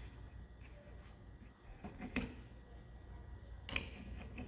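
Plastic pivot cover being pressed onto the base of a rear wiper arm by hand, with a few faint clicks over a low steady hum.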